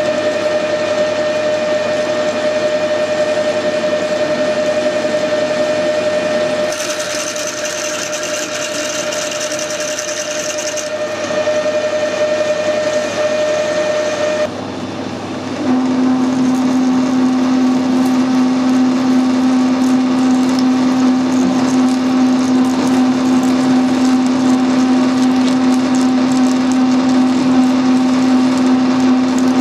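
Metal lathe running with a steady whine while a twist drill in the tailstock bores through a steel tube spinning in the chuck, with a hiss of cutting for a few seconds in the middle. About halfway through the sound cuts off and is replaced by a lower steady hum as the lathe turns the outside of the tube, the tool throwing long stringy swarf.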